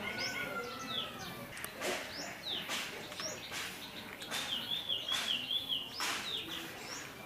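Birds chirping over and over: many short falling chirps, with a warbling trill in the middle, broken by a few sharp clicks or rustles.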